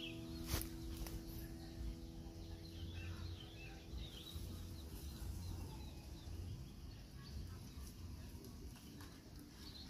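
Faint, scattered bird chirps over a steady low outdoor rumble, with one sharp click about half a second in. A few held music tones fade out in the first couple of seconds.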